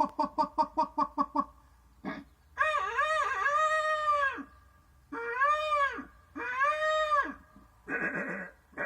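A dog yelping quickly about eight times a second, then howling in three long cries that rise and fall in pitch, then giving two short rough barks near the end.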